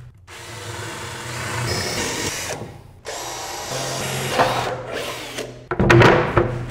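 Cordless drill running in two bursts as a plywood tool board is fastened to steel shelving, followed by several loud knocks of the board being pushed into place near the end.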